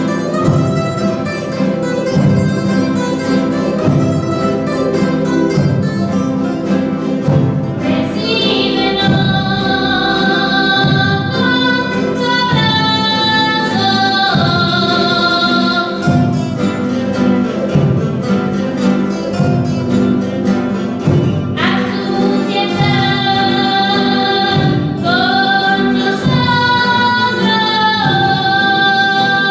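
A small ensemble of guitars and other plucked string instruments playing a steady strummed accompaniment while voices sing a hymn; the singing climbs to higher notes about 8 seconds and 22 seconds in.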